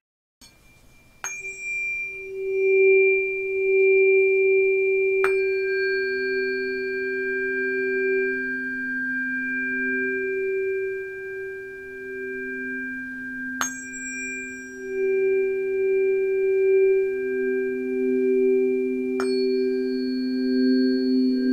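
Two Pythagorean tuning forks, one low and one higher about a fifth above it, are struck in turn four times with a sharp tap. Each fork rings on in a long, steady tone, so the two sound together.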